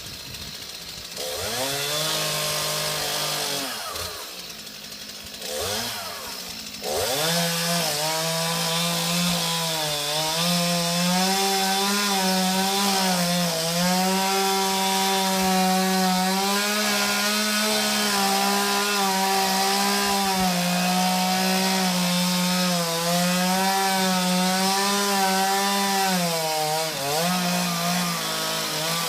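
Chainsaw revving up, easing off briefly, then held at full throttle for about twenty seconds, its pitch wavering slightly under load as it cuts into a palm trunk, and dropping back near the end.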